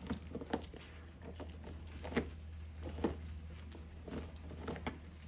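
A young dog pawing and scratching at the carpet and the base of a couch to reach a toy stuck underneath: irregular scrapes and scuffles, a few of them sharper.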